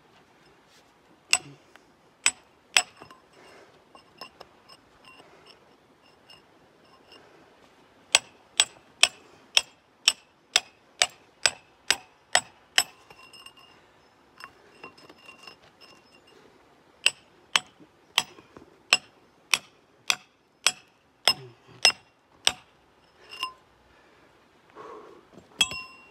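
Steel chisel worked against rock: sharp metallic clinks, each with a short high ring, coming in runs of about two a second with pauses between the runs.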